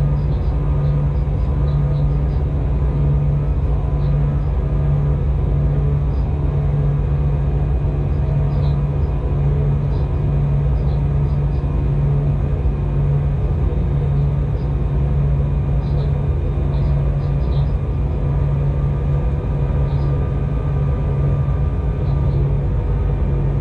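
Electric locomotive running alone, heard from its cab: a steady low rumble with a hum that swells and fades in a slow regular beat, and faint high ticks now and then.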